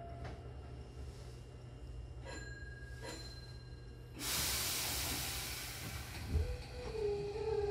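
Hankyu commuter train standing with its doors shut: a sudden burst of compressed-air hiss about four seconds in, typical of the air brakes releasing before departure, lasting about two seconds. It is followed by a low thump and a steady whine from the traction motors as the train starts to pull away.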